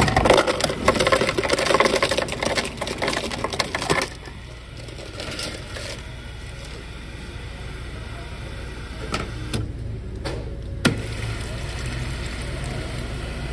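Ice cubes clattering into a paper cup from a soda fountain's ice dispenser for about four seconds. Then a quieter steady hiss with a few sharp clicks, and near the end soda streaming from the fountain nozzle into the cup.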